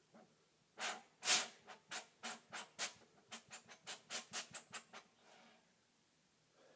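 Blue flame of burning fuel vapour at the mouth of a lidded glass jar, puffing in a run of short whooshes, about three or four a second, the first ones strongest, then quicker and weaker until they stop about five seconds in as the flame goes out.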